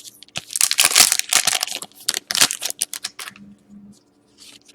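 Wrapper of an Upper Deck SP Game Used hockey card pack being torn open and crinkled: dense tearing and crackling for about three seconds, then only faint rustles.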